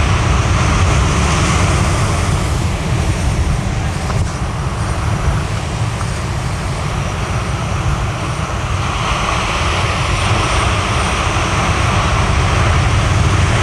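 Strong wind buffeting the microphone over surf breaking and washing against a rock jetty. The wash of the waves swells near the start and again about nine seconds in.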